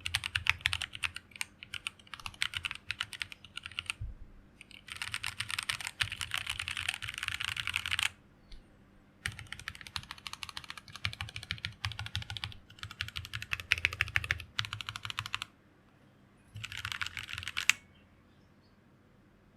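Typing on a mechanical keyboard with stock, unlubricated Bolsa Tropical linear switches (63.5 g, polycarbonate top housings, nylon bottom housings) in a plateless BM60 board. Quick runs of keystrokes are broken by short pauses, and the typing stops near the end.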